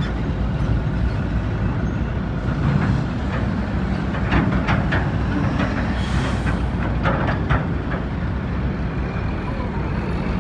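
Heavy dump truck's diesel engine running as the loaded truck rolls close past, with metallic clanks and rattles from the body and chassis in the middle of the pass and a brief hiss of air about six seconds in.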